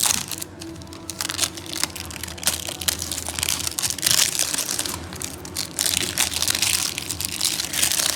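Plastic wrapping crinkling and crackling as it is torn and peeled off a LOL Surprise ball, a dense run of irregular crackles throughout.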